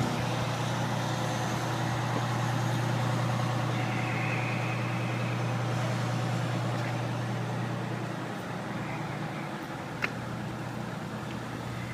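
Fire engine idling with a steady low hum, which grows fainter about eight seconds in. A single sharp click about ten seconds in.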